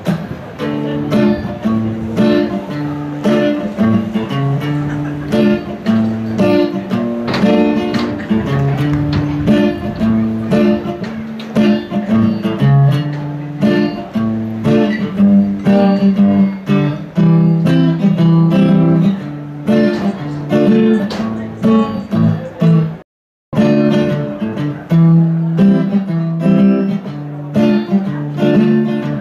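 Acoustic guitar played solo, changing chords in a steady rhythm: the instrumental intro of a song before the singing comes in. Near the end the sound cuts out completely for a moment.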